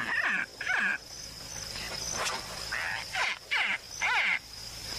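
Crocodile distress calls: short calls that fall steeply in pitch, in quick groups of three or four, with a pause of about two seconds between groups.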